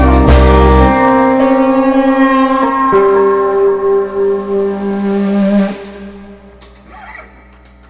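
A live rock band's drums stop about a second in. The guitars and keyboard hold the closing chord, which rings and fades away at about six seconds, leaving only faint small sounds.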